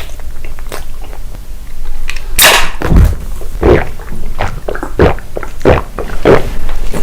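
Close-miked eating: bites and chewing of food, a run of loud, sharp strokes about one every half second or so, starting about two seconds in after quieter chewing.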